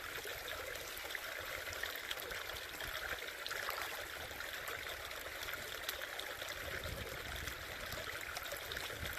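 Shallow creek trickling steadily over rocks.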